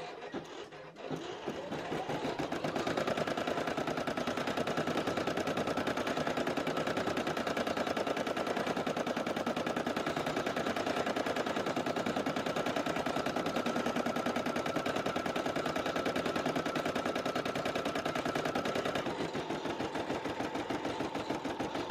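Husqvarna Classic 95 computerized embroidery machine stitching, a rapid, even needle clatter that starts about a second in and settles into a steady rhythm. A faint steady whine runs above it and stops a few seconds before the end.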